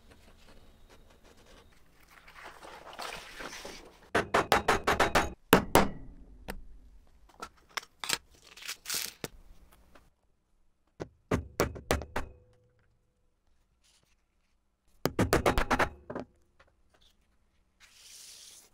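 A utility knife scrapes through leather, then a hammer strikes a metal eyelet-setting tool in four short runs of quick taps, setting metal eyelets.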